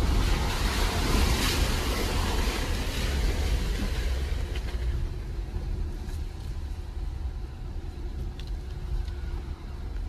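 Jeep driving slowly along a rough dirt trail: a low engine and drivetrain rumble with rushing tyre and road noise, louder over the first few seconds and then easing off.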